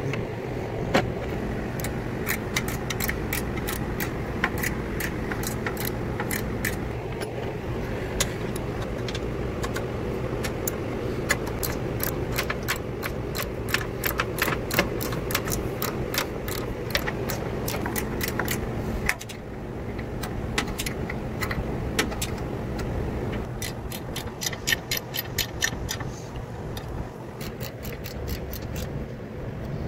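Hand ratchet and ratcheting wrench clicking in quick runs as bolts are turned, over a steady background hum. The clicking pauses a little past the middle and comes back near the end.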